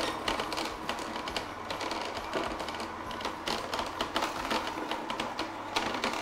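Wartmann vertical slow juicer's auger crushing fibrous ginger and turmeric root: a steady run of irregular cracking, crunching clicks.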